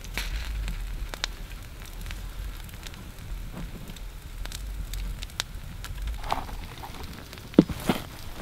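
Scattered light crackling and ticking of hands working cord through a skinned beaver carcass. Near the end come two sharp knocks as a wooden stake is brought down onto the carcass on the log.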